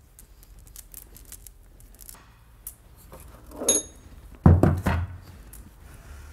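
Old steel timing chain handled with a cloth rag: rag rubbing and faint clicking of the links as it is wiped and lifted out. A brief ringing metallic clink comes a little before four seconds in, and a heavier thunk about half a second later as the chain is laid down on the towel.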